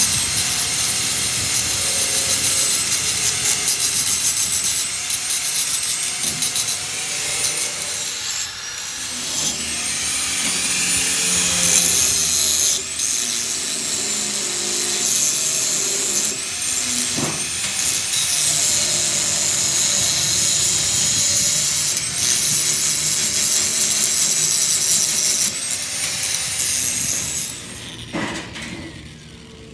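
A power tool running under load: a noisy grinding with a high whine that rises and falls. It fades out near the end.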